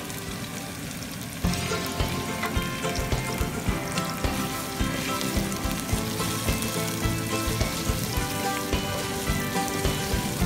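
Diced pork frying with onions and garlic in hot oil in a pot, sizzling and crackling as it is stirred with a spatula; the sizzle gets louder about a second and a half in. Background music plays underneath.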